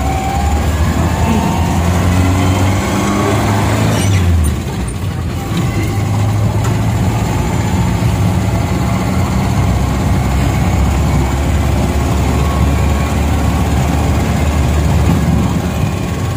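Angkot minibus engine heard from inside the cabin while driving: the engine note climbs over the first few seconds, drops off briefly about four seconds in, then settles into a steady run with road noise.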